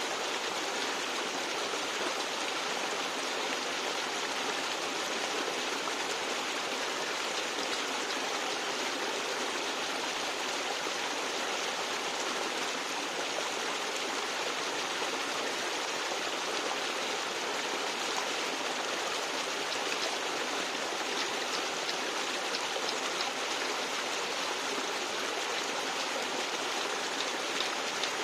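Stream gurgling through rocks, a steady, unbroken rush of water.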